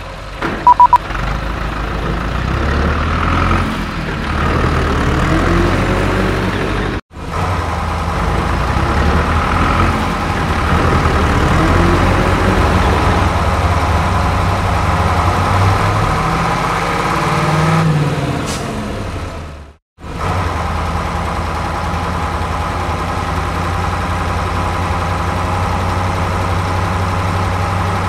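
Truck engine running, revving up and down now and then. It cuts off abruptly about seven seconds in and again about twenty seconds in, then starts again each time.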